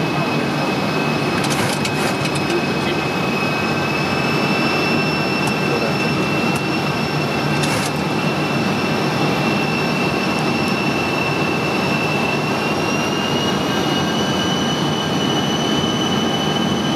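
Flight-deck noise of an E-3A Sentry (Boeing 707) on final approach: a steady rush of airflow and engine noise with a high steady whine that steps up slightly in pitch about twelve seconds in. A few faint clicks come about two and eight seconds in.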